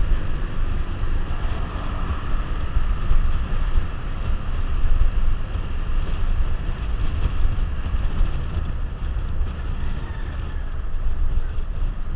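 Heavy wind rumble on a helmet-mounted action camera's microphone while riding a Suzuki GZ150 motorcycle, with the bike's single-cylinder engine running steadily underneath.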